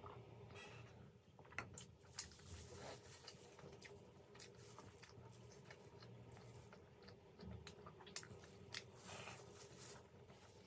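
Faint close-up chewing and biting of steamed vegetable momos (dumplings): soft wet mouth sounds with scattered small clicks.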